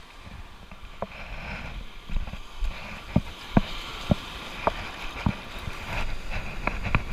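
A series of about eight sharp, irregular knocks over a steady low rumble.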